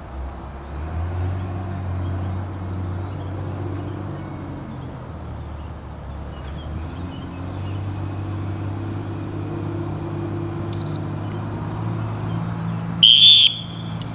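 Wheel loader's diesel engine running steadily nearby, its pitch shifting a little now and then. Near the end a dog-training whistle is blown once, a short shrill blast, the loudest sound.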